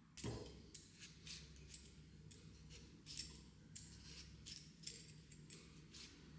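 A soft thump near the start, then a run of light, irregular clicks and clinks, as of small household objects being handled.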